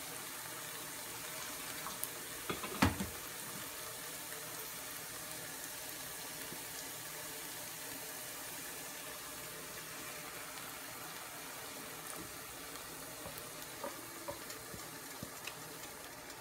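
Steady sizzling hiss of onions and masala frying in ghee in a pan. A single sharp knock about three seconds in, and a few light clicks later on.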